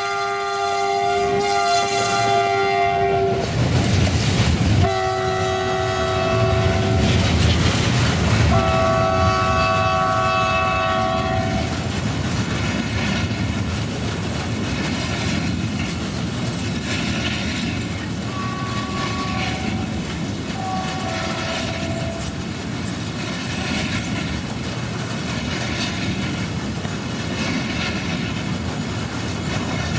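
Horn of a Siemens ER20 Hercules diesel-electric locomotive hauling a freight train: three long chord-like blasts in the first twelve seconds, then two shorter, fainter ones a little past the middle. Under it runs the steady rumble and clickety-clack of the passing train.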